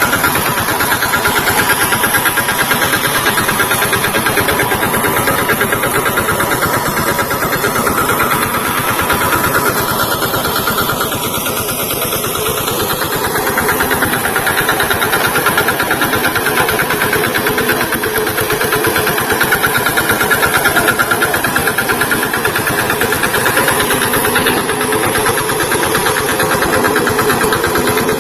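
VST Shakti tractor's diesel engine running steadily with a fast, even firing rhythm, easing off slightly for a few seconds midway.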